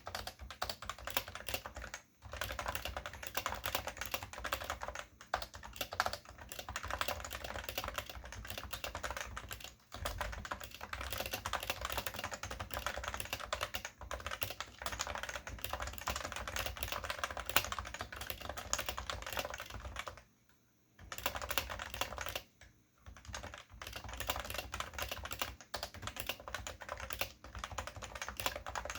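Continuous fast typing on a Cooler Master NovaTouch keyboard with Topre electrostatic-capacitive switches, a dense stream of key thocks broken by short pauses, the longest about twenty seconds in.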